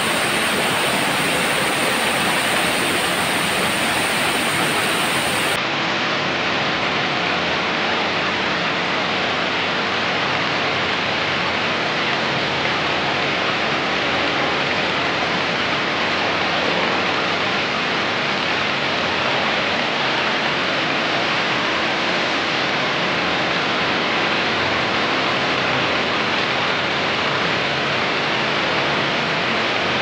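Small waterfall cascading over rocks, a continuous even rush of falling and splashing water.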